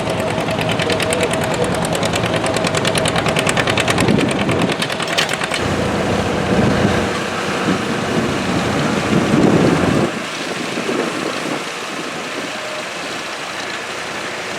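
Old farm tractor engines running at idle with a steady, rapid beat. The sound drops noticeably quieter about ten seconds in.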